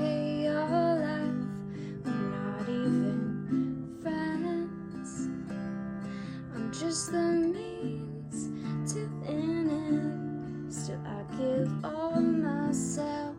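Strummed acoustic guitar playing steadily, with a woman's voice singing over it at times.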